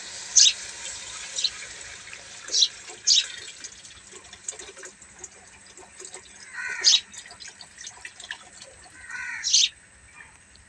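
Thin besan batter poured steadily from a steel bowl into a steel pot of fried masala: a continuous liquid pouring sound with a few short sharp sounds. It fades near the end as the pouring stops.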